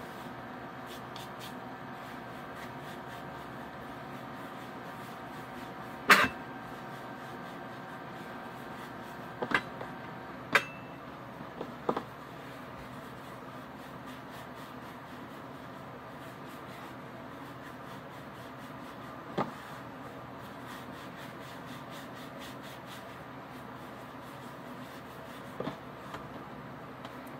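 Hands rolling sourdough pretzel dough into a rope on a granite countertop: soft rubbing with about half a dozen sharp knocks on the counter, the loudest about six seconds in, over a steady hum.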